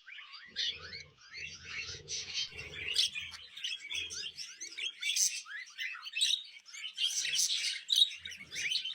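Parrot chirping and whistling: a quick, unbroken run of short high chirps that overlap one another.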